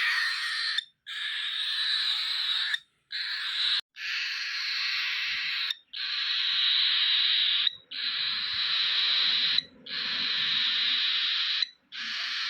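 Cockatiel chick giving its food-begging call: a harsh, raspy hiss repeated over and over, each call a second or two long with brief pauses between, a sign that it is hungry and asking to be fed.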